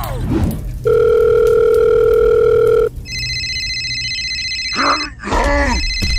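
Telephone sound effects: a steady beep lasting about two seconds, then an electronic phone ringtone. The ringtone is broken just before the end by a short voice-like sound and then starts ringing again.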